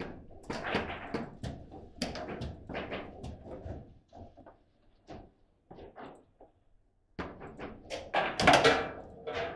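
Foosball ball and rods knocking as the ball is passed about the table: a run of sharp clacks and knocks, only a few faint ones for a few seconds in the middle, then a busier, louder run from about seven seconds in.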